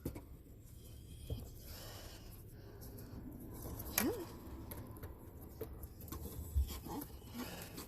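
Faint scattered clicks and scrapes of hands working the shifter cable and its clip free under the dashboard, over a low rumble.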